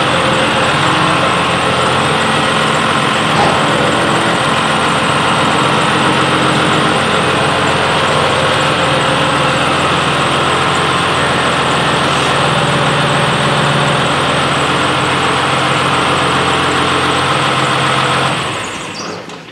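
Tractor diesel engine running steadily while the front loader is worked hydraulically to uncouple and lift away from a bale grab. There are a couple of faint knocks along the way, and the sound fades out near the end.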